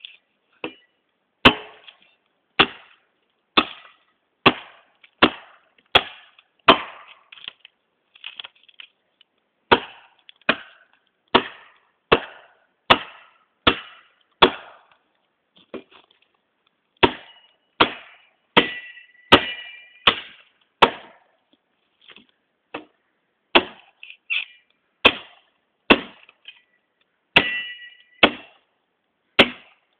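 Tramontina machete chopping into dead wood: runs of sharp strikes at about one and a half a second, broken by short pauses. A few strikes leave a brief metallic ring from the blade.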